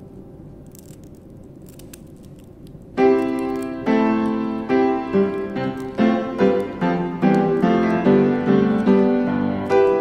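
Background piano music. It comes in about three seconds in with notes struck every half second or so, after a quieter opening with a faint held tone and a few light clicks.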